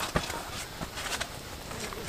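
Wood campfire crackling, with a few irregular sharp pops over a low steady hiss.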